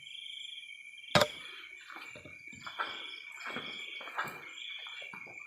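Night insect chorus of crickets, a steady pulsing trill. About a second in comes one sharp loud click or knock, followed by a series of irregular rustling, crunching noises.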